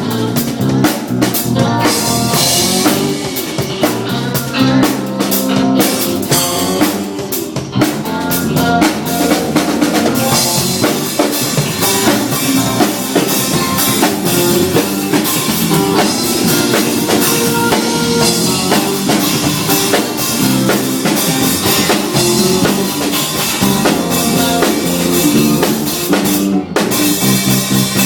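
Music played on a drum kit, with kick, snare and rimshot hits over pitched instruments, and a brief break near the end.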